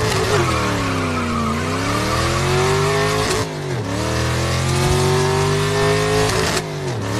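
Racing car engine sound effect revving through the gears: the pitch climbs, then drops sharply at a gear change, twice.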